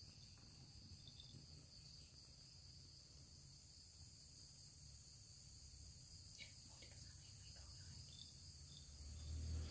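Near silence: quiet room tone with a faint steady high-pitched whine and a low hum. A low rumble swells near the end.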